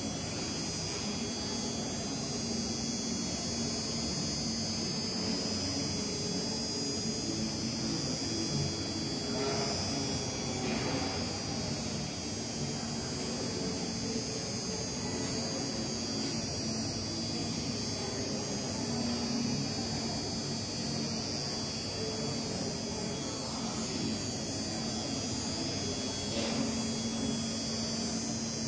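Steady electrical buzz and hum of a large hall, with a high hiss and a faint murmur of distant voices underneath.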